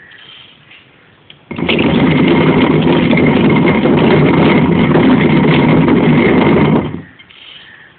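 Hand-turned stone quern grinding grain: a steady, loud grinding rumble of the upper stone rotating on the lower one. It starts about a second and a half in and stops just before the end.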